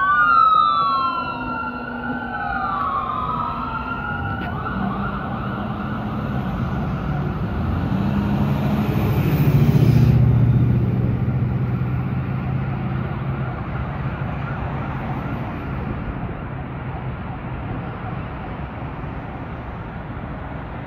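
Fire engine siren wailing in rising and falling sweeps, loud at first and then fading as the truck moves away. A vehicle's engine and tyres swell to the loudest point about ten seconds in, then die away.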